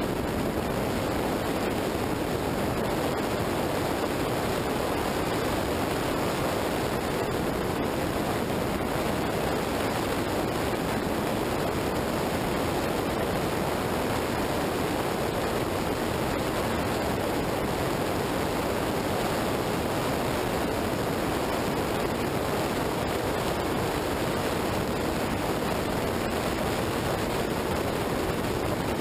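Steady rush of wind and wet-road noise on a motorcycle-mounted action camera at highway speed in rain, with wind blowing over the microphone and no clear engine note.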